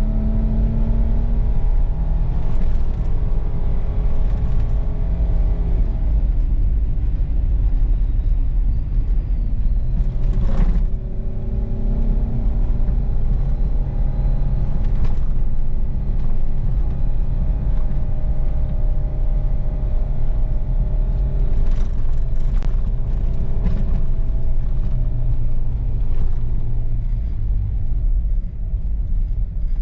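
A four-wheel-drive vehicle driving slowly along a rough off-road trail: a steady low engine and drivetrain rumble whose note rises and falls, with a few sharp knocks, one about ten seconds in and several together a little past twenty seconds.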